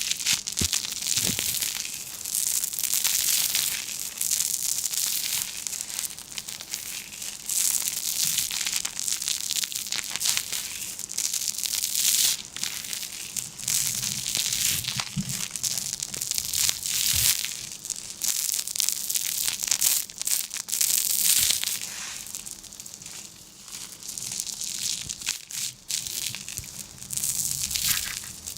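Continuous crinkling and crushing of a crisp, crackly material being handled, in uneven surges with many small crackles.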